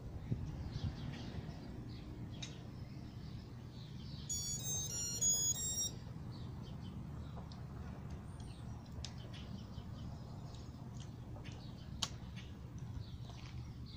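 A short electronic jingle of stepped beeps, about four seconds in and lasting about a second and a half, from an electronic device such as a drone controller or phone. Steady outdoor background noise with faint bird chirps runs under it, and there is a single sharp click near the end.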